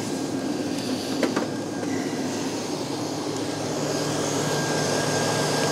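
Electric starter slowly cranking the cold three-cylinder diesel engine of a John Deere 820 tractor without it catching: the weak battery cannot spin the engine fast enough to start.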